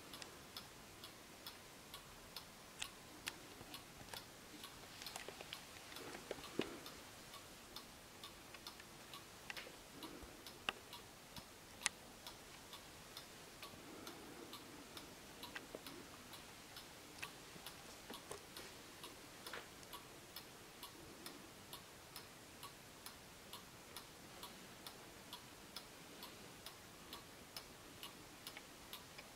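Junghans Gewes 1950s pendulum wall clock ticking faintly and evenly as its movement runs, with a few louder single clicks in between.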